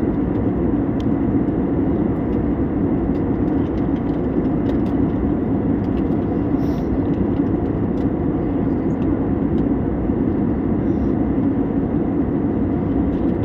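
Aeroplane noise: a steady, even roar that holds one level throughout, with no rise or fall.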